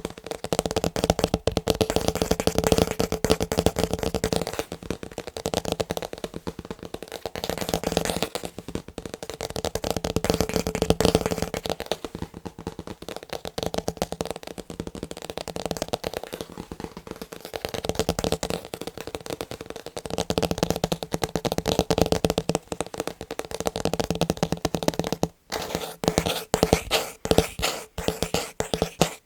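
Fast fingertip and fingernail tapping on picture frames: rapid, dense clicks in stretches a few seconds long, with a steady low ring under the taps and a brief break about 25 seconds in.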